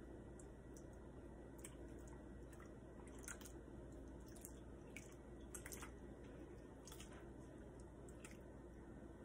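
Faint, scattered drips and wet squishes from a dye-soaked wig being dipped into and lifted out of a bucket of dye water, over a low steady hum.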